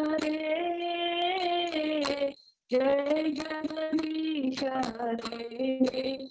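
A woman singing a Vaishnava devotional song solo in long held notes, heard over an online video call. She pauses briefly a little over two seconds in.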